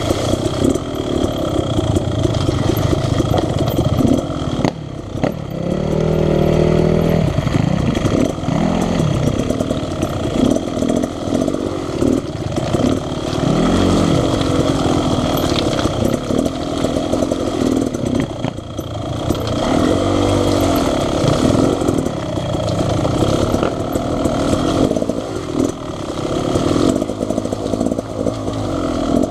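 Two-stroke dirt bike engine riding on a trail, the revs rising and falling over and over as the throttle is opened and closed.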